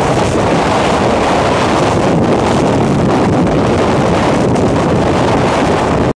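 Strong wind buffeting the microphone in a steady, loud rumble under a supercell thunderstorm, cutting off suddenly near the end.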